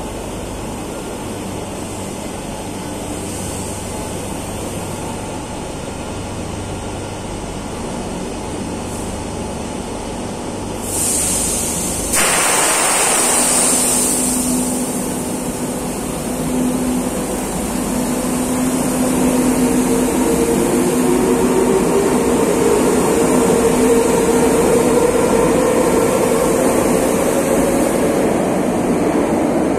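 Madrid Metro underground train standing at the platform with a steady low hum. About eleven seconds in there is a sudden burst of hiss. The train then pulls away, its motor whine rising in pitch and the running noise growing louder as it accelerates out of the station.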